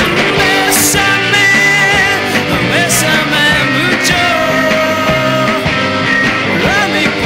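Recorded rock band of two electric guitars, electric bass and drums playing, with cymbal crashes about one, three and four seconds in.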